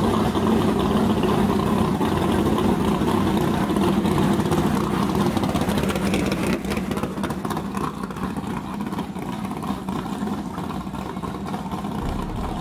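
Rat rod's exposed V8 engine running through open headers at low speed. The sound eases somewhat in the second half as the car pulls away.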